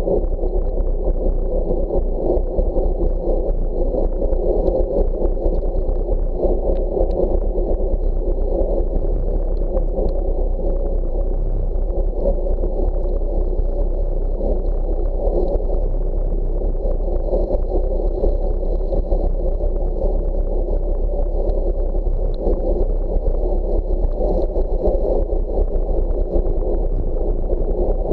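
Steady, muffled rush of wind on a cyclist's action camera, mixed with bicycle tyre noise on wet pavement, while riding at speed.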